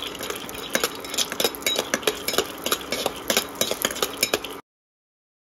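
Metal spatula stirring raw peanuts around a non-stick kadhai as they roast in a little ghee: a quick, irregular run of clicks and scrapes as the nuts rattle against the pan, over a faint steady hum. The sound stops dead after about four and a half seconds.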